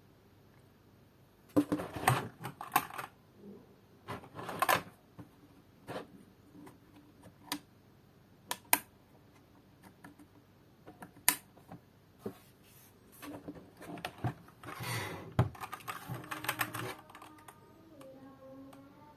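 Keys being pressed on a Keychron K4 V2 mechanical keyboard with Gateron Brown switches: sharp key clacks in short, irregular flurries with pauses between them.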